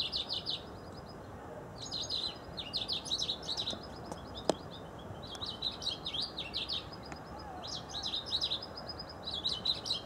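Aviary songbirds chirping and singing in short bursts of quick high notes, four phrases with pauses between them, and a single sharp click about halfway through.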